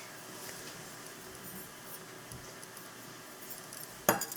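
Faint scraping of a tablespoon scooping plain flour into a mixing bowl, then two sharp clicks of the spoon against the bowl near the end.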